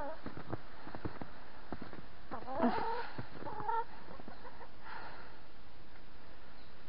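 Domestic hens clucking: one call about two and a half seconds in and a shorter one about a second later, with faint scattered clicks between.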